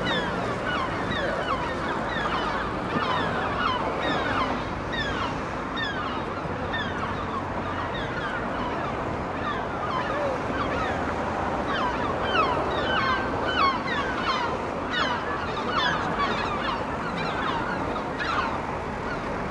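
Gulls calling throughout, many short falling cries overlapping one another, over a steady background rush.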